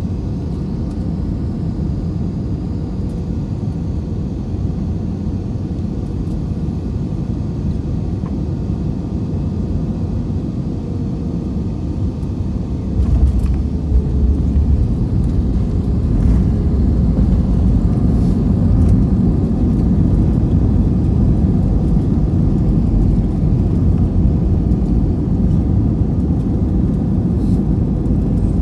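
Jet airliner cabin noise on final approach: a steady engine and airflow rumble. About halfway through the plane touches down, and the sound jumps to a louder, deeper rumble of the wheels rolling on the runway as it decelerates with its ground spoilers up.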